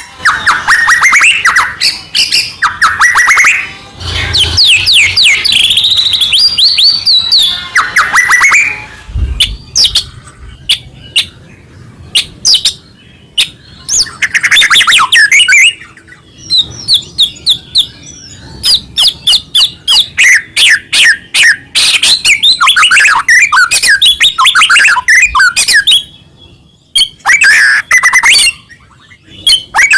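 White-rumped shama (murai batu) singing loudly: fast, varied phrases of whistles, rapid trills and quick clicking notes, in bursts broken by short pauses.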